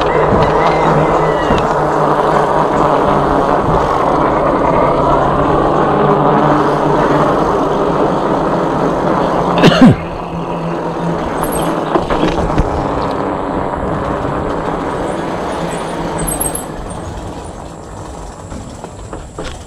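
E-bike riding along a concrete path: a steady low motor hum with wind and tyre noise, broken by a sharp knock about ten seconds in, after which it runs quieter and fades lower near the end.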